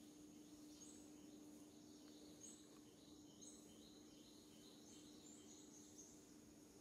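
Near-silent outdoor forest ambience: faint short high chirps every second or so over a steady high-pitched whine and a low steady hum.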